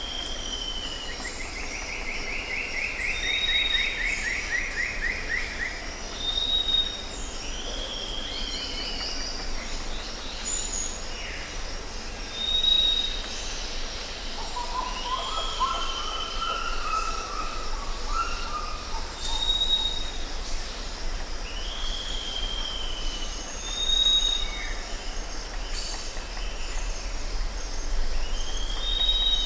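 Jungle ambience: several birds calling over a steady high drone of insects. One bird repeats a short high note every few seconds. Another gives a fast trill near the start, and a lower warbling phrase comes about halfway through.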